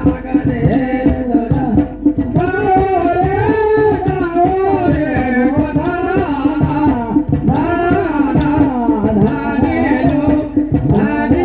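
Live Pahari folk music played for a dance: a singer's voice rising and falling over dhol drum strokes about twice a second, with a steady held drone underneath.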